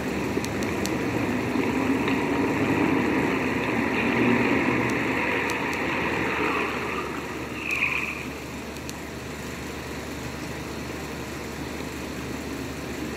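Motor vehicle engine passing, swelling over the first few seconds and fading by about eight seconds in, with a short higher-pitched squeak just before it fades.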